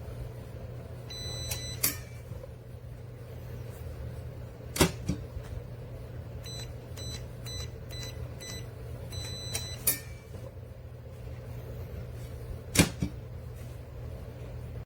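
Electronic keypad of a biometric pistol safe beeping: a short high tone, then about six quick key-press beeps ending in a longer beep. Several sharp clunks of the metal safe are spread through the clip, over a steady low hum.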